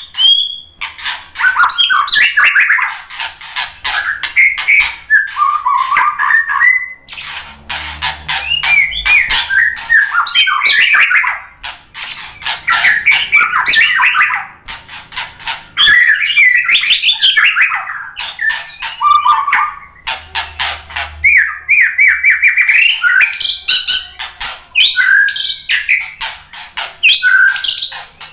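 White-rumped shama (murai batu) singing a long, varied song. It delivers fast trills, chattering runs and whistled phrases in bursts of a few seconds, with short pauses between them.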